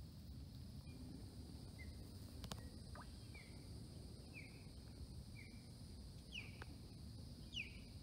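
Faint natural ambience: a bird giving short chirps about once a second from about two seconds in, the last two with a quick falling sweep, over a steady high hiss and low rumble. A single sharp click about two and a half seconds in.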